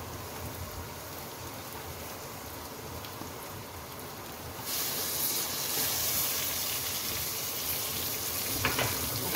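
Onions with crushed ginger-garlic and green chillies sizzling in hot oil in a karahi. The sizzle turns suddenly louder and brighter about halfway through, with a few short knocks near the end.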